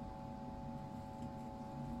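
Coal forge's air blower running with a steady hum and low rumble while the fire burns.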